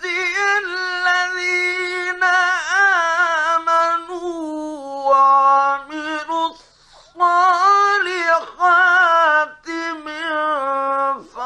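A man reciting the Quran in the melodic mujawwad style, holding long ornamented notes whose pitch wavers and glides, with a short breath about two-thirds of the way through.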